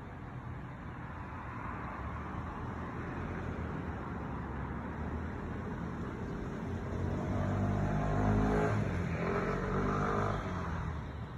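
Road traffic hum, with a car's engine accelerating past, getting louder about seven seconds in and fading away near the end.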